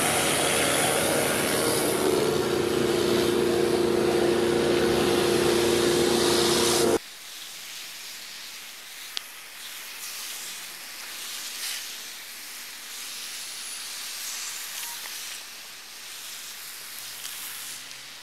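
Pressure washer running, a loud steady drone with a hum under the hiss of the water jet, which stops abruptly about seven seconds in. After that comes a quieter, even hiss of a pressure-washer jet spraying across asphalt roof shingles, with a faint click or two.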